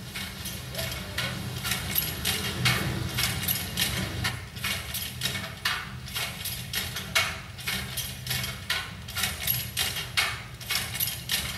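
Sound design from a film soundtrack: sharp clicks and knocks, about three a second and unevenly spaced, over a low steady drone.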